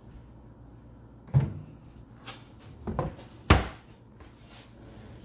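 Kitchen handling sounds: a few sharp knocks as things are set down and moved, the loudest about three and a half seconds in.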